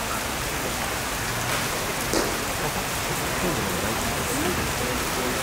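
Steady rain falling, an even hiss, with a single brief sharp sound about two seconds in.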